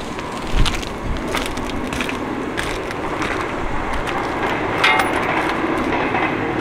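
Footsteps on rubber roof tiles, a light step about every half second, then the fallen plastic grille cover of an outdoor air-conditioning unit being picked up and handled, with a short squeak about five seconds in. Wind noise on the microphone runs underneath.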